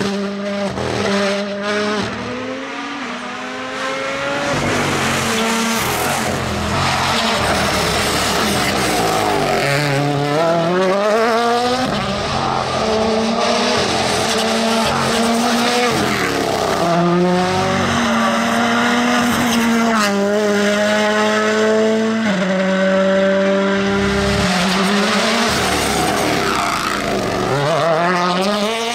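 Toyota Yaris WRC rally car's turbocharged four-cylinder engine driven flat out, its pitch repeatedly climbing through the revs and dropping back at each gear change, with tyre and road noise throughout.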